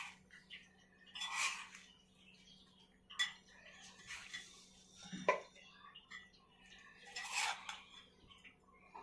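A steel spoon scraping and clinking against a ceramic bowl and a glass jar in several short, separate bursts as chili pickle is spooned into the jar. A faint steady hum runs underneath.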